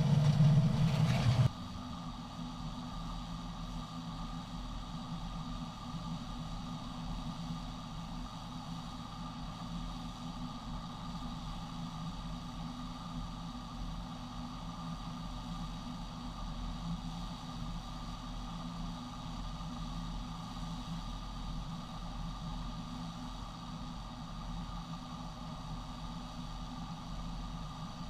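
Farm machine engine running steadily. It is louder for the first second and a half, then drops suddenly to a lower, even hum.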